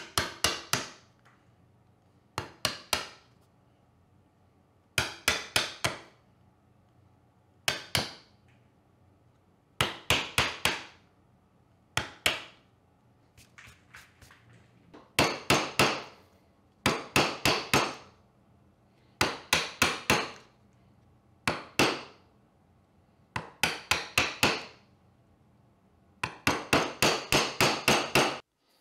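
Wooden mallet striking a chisel in short bursts of sharp blows, chopping out the waste between dovetails in the end of a board. Bursts of three to six blows come every couple of seconds, with a longer run of rapid blows near the end and a soft brushing of chips off the bench about halfway through.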